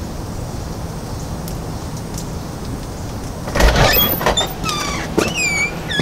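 A steady low rumble, then about three and a half seconds in a clatter followed by a string of short, high chirps falling in pitch.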